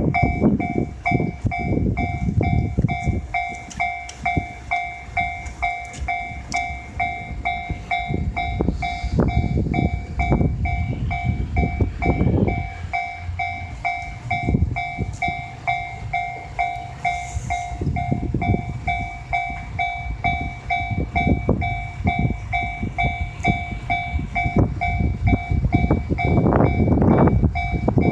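Japanese level-crossing warning bell ringing in quick, evenly repeated two-tone dings while a train runs over the crossing, its wheels clacking over the rail joints over a low rumble.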